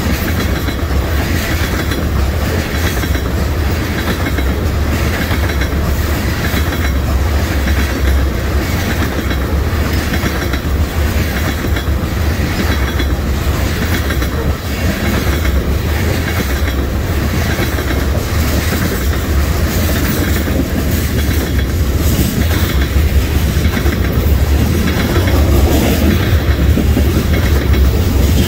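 Tank cars of a long oil train rolling past: a steady rumble with a regular clickety-clack of the wheels over rail joints.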